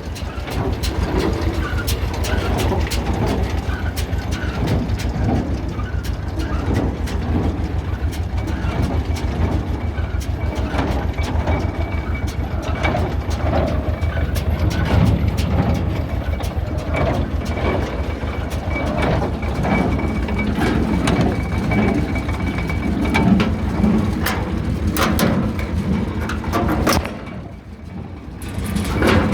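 John Deere 342 small square baler running on a test, driven from a tractor's PTO: a steady mechanical clatter of rapid knocks over the low hum of the running tractor engine, dipping briefly near the end.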